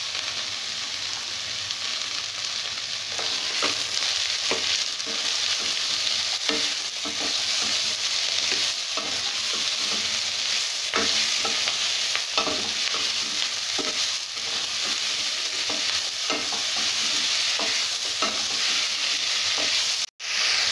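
Sliced mushrooms and vegetables sizzling in hot oil in a pan, stirred with a wooden spatula that scrapes and knocks against the pan every second or so from a few seconds in. The sound cuts out for an instant near the end.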